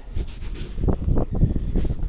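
Wind rumbling on the microphone in irregular low gusts, with a faint hiss above.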